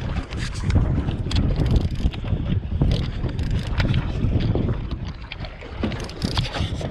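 Wind buffeting the microphone over open water, a heavy uneven rumble, with water splashing and scattered short clicks and knocks.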